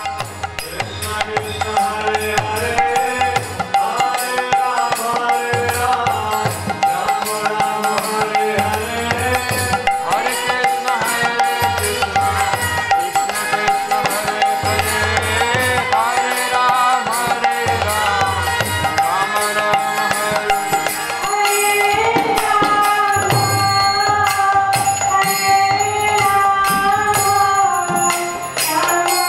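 Devotional kirtan music: a harmonium holding sustained chords under a singing voice, with a mridanga drum beating a repeating pattern. It grows fuller and a little louder about two thirds of the way through.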